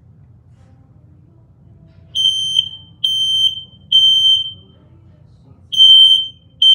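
Smoke detector sounding its test alarm: a loud, shrill single-pitch beep starting about two seconds in, three half-second beeps about a second apart, a short pause, then the pattern starting again. This is the temporal-three evacuation pattern that smoke alarms sound.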